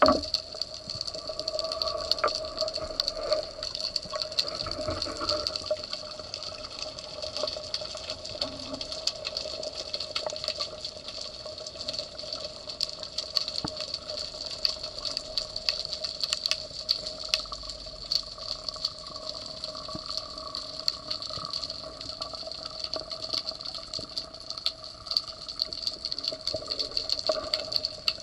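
Underwater ambience picked up through a camera housing: a dense crackle of small clicks over a steady hum.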